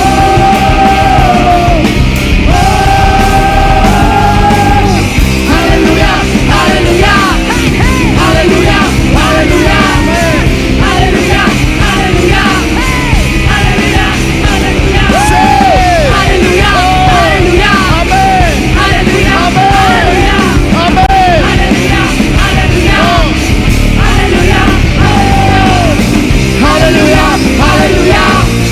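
Live worship band playing loud rock music with drums and electric instruments. A held melodic line gives way about five seconds in to short phrases that swoop up and down.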